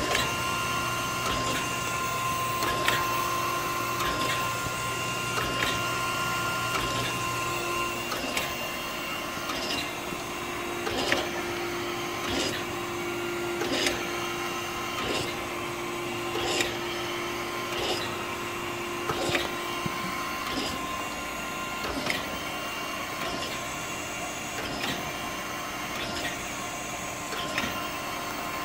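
Okamoto 124N reciprocating surface grinder running: a steady motor hum with a sharp click about every second and a half, as the table reverses at the end of each stroke.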